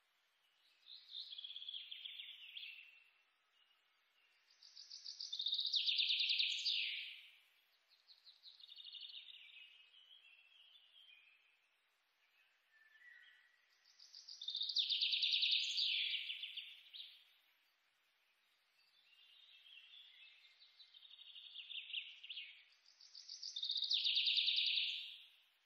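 Coloured pencil scribbling on paper in rapid back-and-forth strokes, a fine high scratching. It comes in spells of two or three seconds that swell and fade, with short pauses between them, the loudest spells about six, fifteen and twenty-four seconds in.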